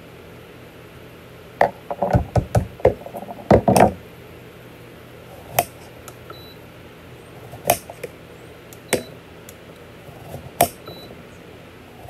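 Knocks and clicks of things being handled on a table: a quick cluster from about one and a half to four seconds in, then single sharp clicks every second or two.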